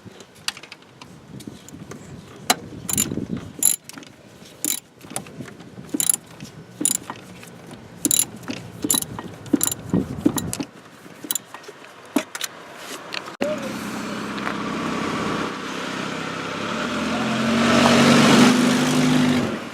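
Ratchet wrench clicking in short, irregular runs, with metal tool clicks, as bolts are worked loose in a car's engine bay. After an abrupt cut about thirteen seconds in, a steady hum with a rushing noise that swells near the end.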